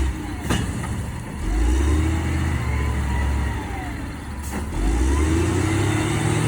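Turbocharged diesel truck engine, with a freshly replaced turbocharger, revved up twice from idle; its pitch rises and falls each time. Each rev is preceded by a sharp click, and the engine is being run to check for abnormal noises after the turbo replacement.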